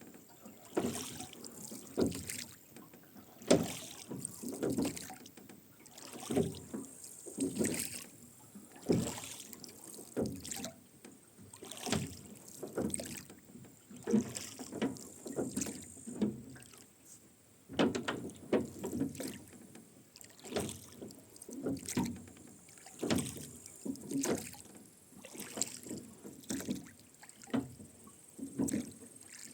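Rowboat being rowed: the oarlocks creak and the oars splash in a steady rhythm, about one stroke every second and a bit.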